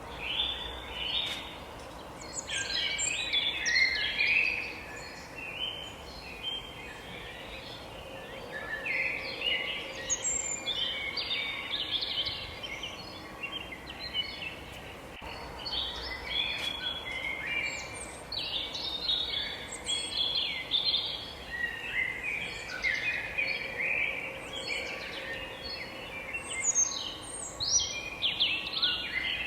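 Several forest songbirds singing and chirping at once, a dense chorus of overlapping quick high notes and trills with a few short lulls, over a faint steady background hum.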